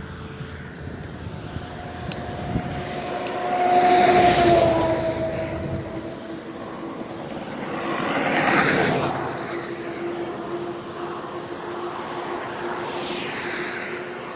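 Road traffic passing close by: two vehicles go past, the loudest about four seconds in and another about eight and a half seconds in, each swelling and fading, with a drop in pitch as the first one passes.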